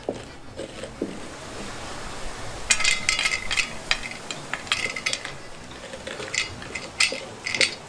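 A spoon scraping seeds and stringy pulp out of a halved squash. From about three seconds in comes a run of sharp clicks and scrapes with a light ring, as the seeds and pulp are worked out onto an enamel plate.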